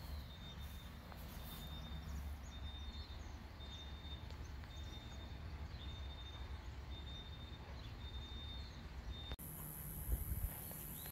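Outdoor ambience: a steady low rumble, with a short high-pitched beep repeating about once a second and faint chirps. The sound changes abruptly near the end, and a few low thumps follow.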